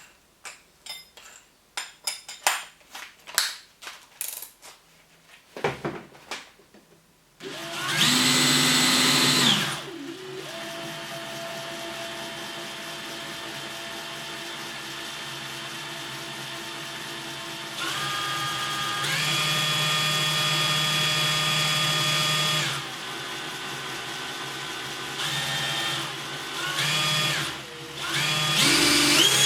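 A series of sharp clicks and knocks. About seven seconds in, a DeWalt DCD790 brushless cordless drill's motor starts up and runs with a steady whine, shifting between several speeds with short faster bursts as the trigger is varied.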